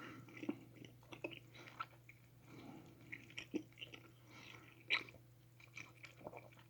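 Faint chewing of a dense, sticky gelatin gummy bear: scattered wet mouth clicks and smacks.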